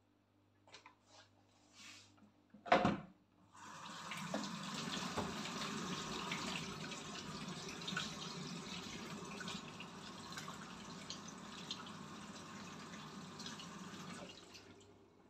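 A few soft handling sounds and a sharp knock, then a kitchen tap runs steadily for about eleven seconds and is shut off near the end.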